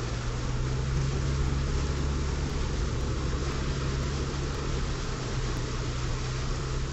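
Steady rushing of fast-flowing floodwater, with a constant low hum underneath.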